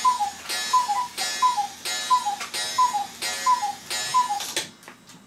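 Cuckoo clock calling: about seven two-note "cuck-oo" calls, a higher note dropping to a lower one, each blown with a rush of bellows air, one about every three-quarters of a second. The calls stop shortly before the end.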